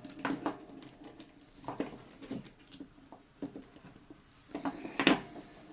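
Scattered light clicks and taps of small metal parts and tools being handled as a vacuum cleaner motor's shaft nut and bearings are taken off, with the loudest tap about five seconds in.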